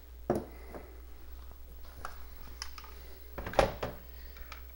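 Scattered plastic clicks and knocks as a Coleco Adam data drive is handled and fitted into the computer, with one louder knock about three and a half seconds in.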